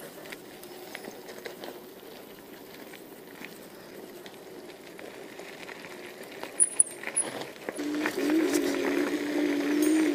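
Electric scooter tyres rolling over a gravel track with small crackles and clicks, then about eight seconds in the scooter's motor comes in with a steady low whine that gets louder as it moves off.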